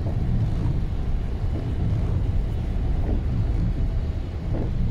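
Car cabin noise while driving on a rain-soaked road: a steady low rumble of tyres and engine, with the windscreen wipers making a faint sweep about every second and a half.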